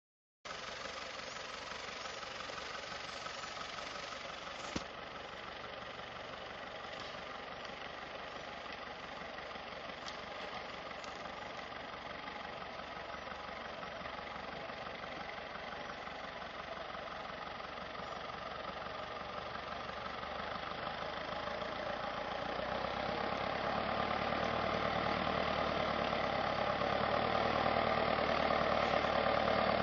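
Small tractor's engine running steadily as it crawls along in second reduction gear, growing louder over the last ten seconds as it comes closer. A single sharp click about five seconds in.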